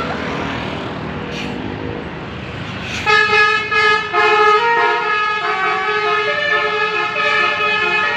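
A vehicle's engine runs steadily, then about three seconds in a Basuri telolet multi-tone horn starts and plays a melody of stepping, held notes. The horn is loud.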